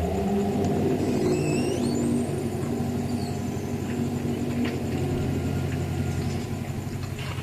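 An engine running steadily, with a wavering pitched groan that sets in suddenly over it and fades after about five seconds. A short high chirp sounds about a second in.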